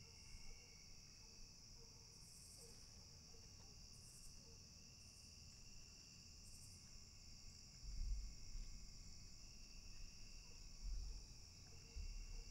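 Faint, steady evening chorus of crickets and other insects, with a few short low rumbles in the second half.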